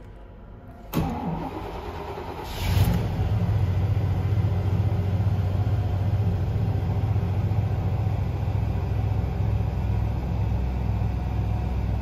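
GM 5.7-litre V8 cranking briefly on the starter, catching about two and a half seconds in and settling into a steady idle. This is a crank-no-start engine now starting on a new crankshaft position sensor shimmed with one washer to set its air gap.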